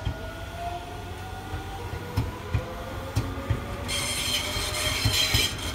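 Tobu 100 series Spacia electric train passing slowly, its wheels thumping over rail joints. A faint motor tone rises slowly in pitch. From about four seconds in, a loud high-pitched wheel squeal sets in.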